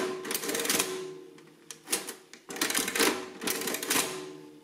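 Victor series 2 adding machine cycled by its hand lever, the mechanism clattering as the keyed-in number is added to the register and printed. There are two bouts of clatter, the second starting about two and a half seconds in, and each is followed by a fading metallic ring.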